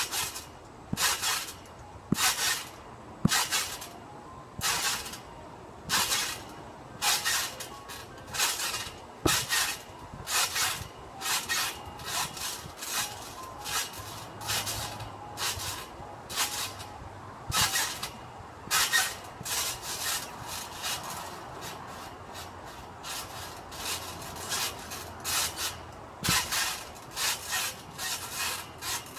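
Spring trampoline creaking and rasping with each bounce, a stretching-spring sound as the mat is loaded, repeated irregularly about once or twice a second.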